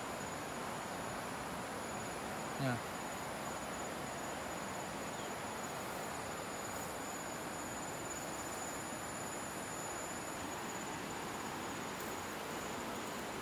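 A steady insect chorus in tall grass: one thin, unbroken high-pitched whine held over a constant hiss.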